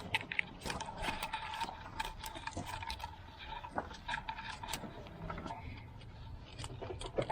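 Socket wrench and metal tools clicking and clinking irregularly while bolts on a tractor are being worked loose or tightened, with a faint steady tone in the background.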